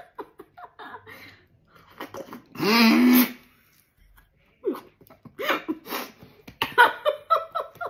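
A woman laughing with a mouthful of milk: a loud burst of laughter about two and a half seconds in, then a run of short laughs as the milk dribbles out of her mouth.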